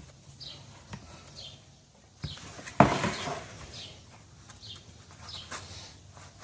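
A small bird chirping over and over in the background, about two short chirps a second, with a single loud knock and a brief rustle about three seconds in.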